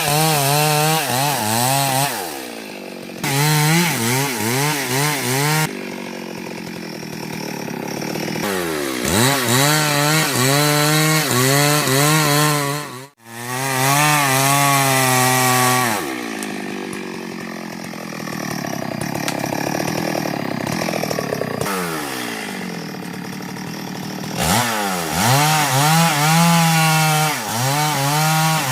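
STIHL MS 382 two-stroke chainsaw cutting into a tree trunk. It revs high again and again, and its pitch sags into longer, duller stretches as it works through the wood. The sound cuts out abruptly for a moment about thirteen seconds in.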